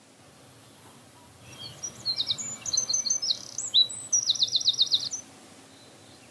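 Bird song sound effect: a burst of high chirps and short whistled notes starting about a second and a half in, ending in a fast trill of about eight notes before stopping about a second before the end, over a faint steady hiss.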